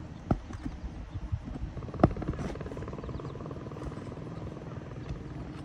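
Shingle removal tool working roofing nails loose under 3-tab asphalt shingles: a few sharp clicks and knocks, the loudest about two seconds in, over a steady low rumble.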